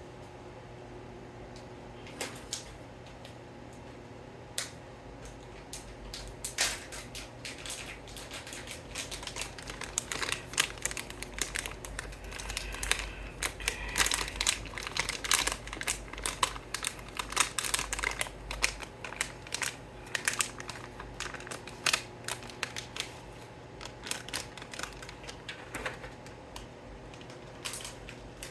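Hands handling plastic parts: irregular clicks, taps and crinkling. A few isolated clicks at first, busiest in the middle, thinning out near the end.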